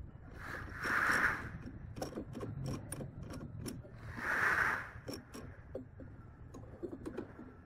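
Drill press keyed chuck being worked by hand to clamp a twist drill bit. There are two short metallic whirrs as the chuck is spun, about a second in and again about four and a half seconds in. Between and after them comes a run of irregular clicks from the chuck key's teeth working against the chuck's gear ring.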